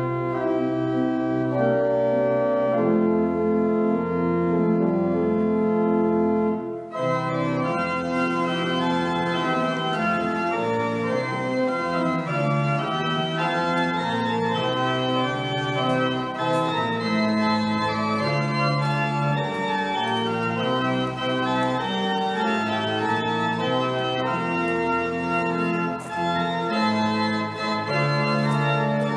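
Organ music: held chords for about the first seven seconds, then, after a brief break, a busier passage of quicker moving notes.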